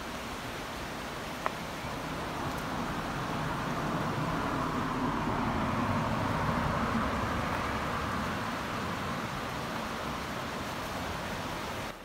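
A car drives past on the road, its noise swelling to a peak about halfway through and then slowly fading, over a steady rushing hiss. A single sharp click comes about a second and a half in.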